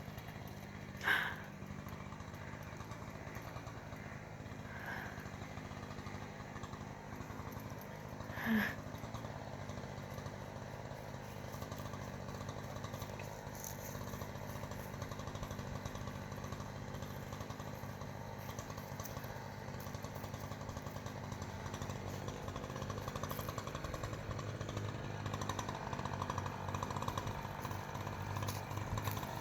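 Chainsaw engine running with a fast, steady chatter, growing louder and higher from about 25 seconds in as it revs up. Two short, sharp sounds stand out above it, about one second and eight and a half seconds in.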